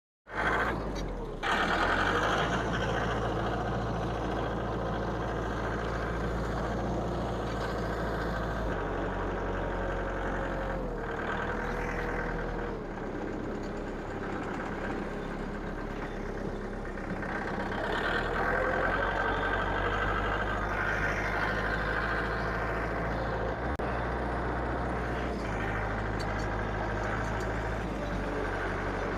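An engine running steadily, its pitch shifting slightly a few times.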